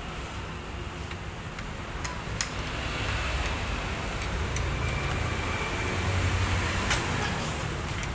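A few sharp clicks and knocks as the plastic and metal side door unit of a Canon iR copier is handled and worked loose, over a steady low background rumble.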